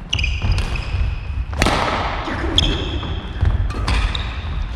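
Badminton rally: a shuttlecock struck back and forth by rackets, sharp cracks roughly a second apart with the loudest about a second and a half in, along with shoes squeaking and feet thudding on a wooden gym floor.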